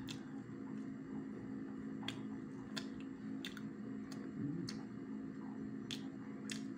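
Eating at the table: about seven sharp, irregular clicks and small taps of mouth and hands, over a steady low hum.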